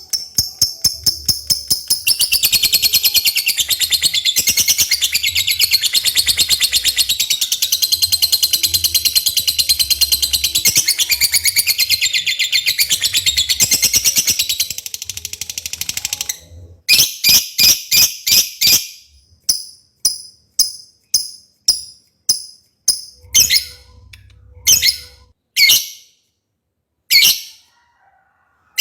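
Lovebird singing: a long, unbroken, high-pitched rapid chattering trill lasting about fifteen seconds, then a series of separate short shrill chirps, about one a second.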